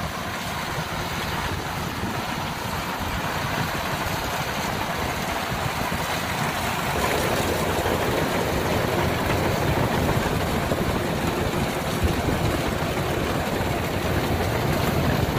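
Kubota DC105X combine harvester running steadily while harvesting rice, growing somewhat louder about halfway through.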